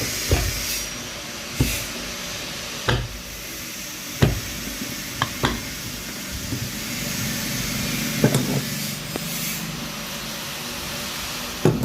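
Irregular sharp knocks and clicks from a ceiling fan being handled and worked on, over a steady hiss.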